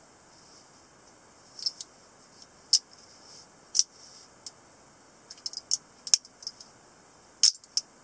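Sharp metallic clicks and snaps from a lever-lock stiletto switchblade being worked by hand: the blade is folded shut and its lock mechanism clicked several times. The loudest snap comes near the end, as the spring-loaded blade fires open and locks.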